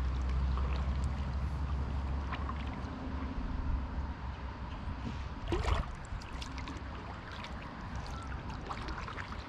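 Kayak paddling: water trickling and dripping off the paddle blade with small scattered ticks, and one louder splash about five and a half seconds in.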